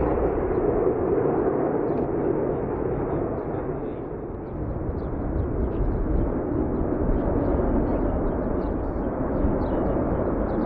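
Jet noise from a formation of T-50B jets flying past: a steady rushing roar that dips slightly about four seconds in and then builds again.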